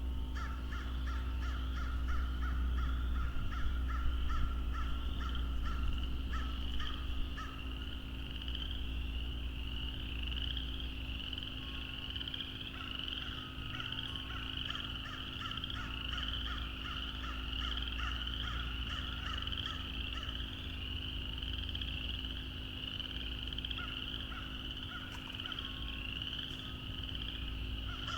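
A chorus of frogs calling: a dense, unbroken wall of high-pitched peeping calls, with a lower pulsing trill from other frogs that comes and goes several times.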